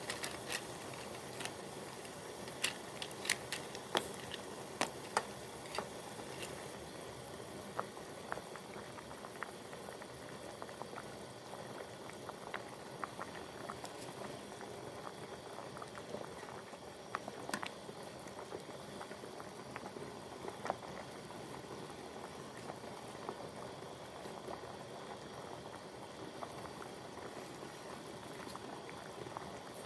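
Hotpot broth boiling steadily, bubbling with frequent small pops in the first few seconds and scattered pops after that.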